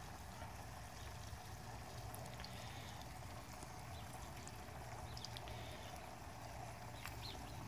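Bacon sizzling faintly and steadily in a cast-iron skillet on a wood-burning tent stove, with a few small pops. The cooking is slow because the stove is heating the cast iron slowly.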